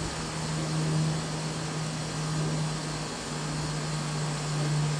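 Steady low mechanical hum over outdoor background noise.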